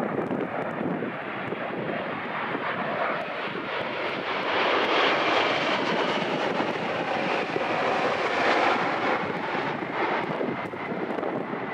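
Boeing 777-200ER twin-jet landing: the steady roar of its engines and rushing air, swelling to its loudest about halfway through as it touches down, then easing off near the end.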